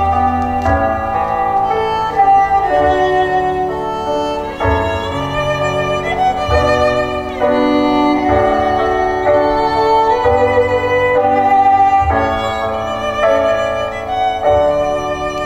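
Instrumental music: a violin melody of held notes over a low bass line, playing without pause.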